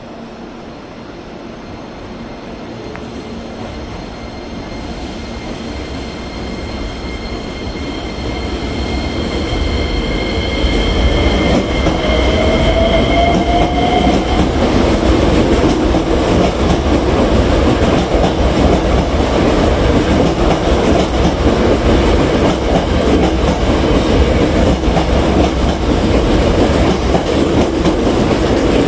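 Hankyu 9300 series electric train pulling out and accelerating past: a whine from its VVVF inverter drive rises in pitch as the running noise grows louder over the first ten seconds or so. The noise then stays loud as the cars roll by, with wheels clattering over rail joints.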